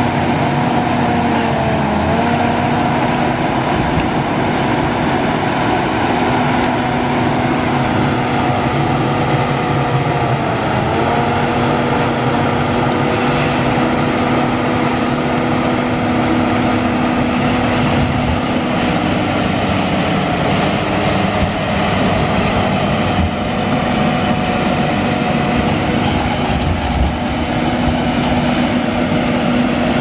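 John Deere 850K crawler dozer's diesel engine running steadily as the dozer pushes sand with its blade. The engine note dips briefly twice, about two seconds in and again about eleven seconds in.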